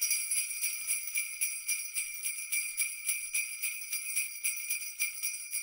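Sleigh-style jingle bells shaken in a steady rhythm of about four shakes a second, a bright high ringing.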